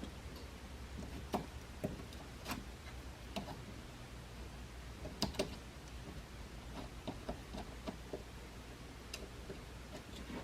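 Faint, irregular small clicks and crackles of a soldering iron at work on fluxed model railway rail, as the rail is heated and solder applied to a wire joint, over a low steady hum.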